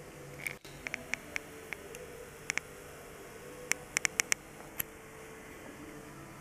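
About fourteen short, sharp clicks at irregular intervals, bunched around one second and four seconds in, over a steady low room hum.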